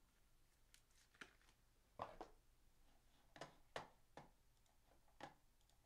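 Near silence broken by several faint, short clicks and taps of trading cards being handled, the loudest about two seconds in.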